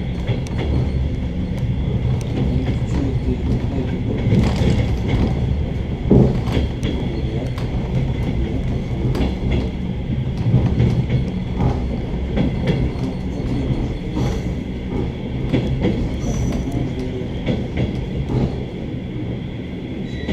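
Suburban train heard from aboard: a steady low rumble with scattered clicks and knocks from the running gear.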